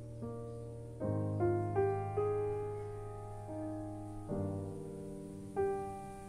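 Slow, soft background keyboard music: piano-like notes and chords struck every second or so, each left ringing and fading over a held low bass note.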